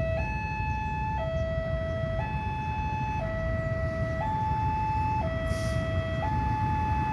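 Two-tone hi-lo siren switching evenly between a higher and a lower note about once a second, over a steady low rumble.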